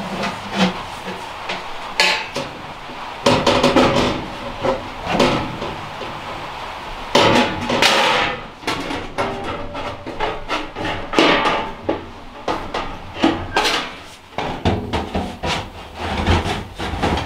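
Black sheet-metal stovepipe sections being handled and fitted together: thin metal clanking, rattling and scraping, with many sharp knocks.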